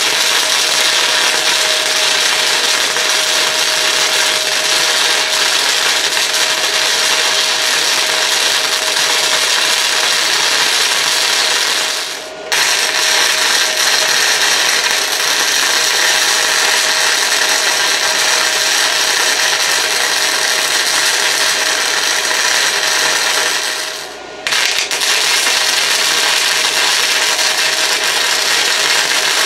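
Flux-core wire-feed welding arc crackling and hissing steadily while laying a bead. The arc breaks off twice for a moment, about a third and about four-fifths of the way through, and strikes again.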